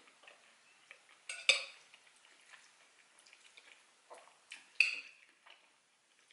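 Metal spoon clinking and scraping against a ceramic bowl while scooping up macaroni goulash, with two sharp clinks, about one and a half seconds in and near five seconds, among softer clicks.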